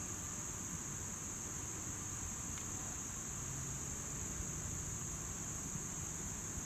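Steady, high-pitched chorus of insects, such as crickets, trilling without a break.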